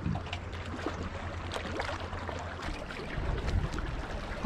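Wind rumbling on the microphone over small waves lapping and splashing against shoreline rocks.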